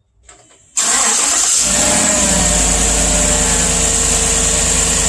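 2016 Chevy Silverado's L83 5.3-litre V8 starting: it catches suddenly under a second in and settles within about a second into a steady idle. With the passenger-side exhaust manifold now bolted on with new ARP bolts in place of the broken studs, it is nice and quiet, with no exhaust leak tick.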